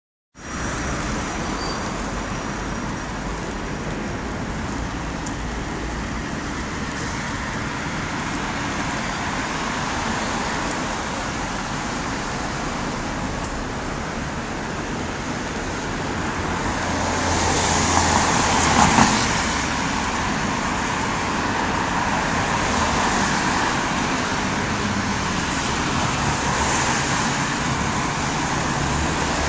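Steady rain noise with road traffic on wet pavement. A vehicle passes, loudest about two-thirds of the way through.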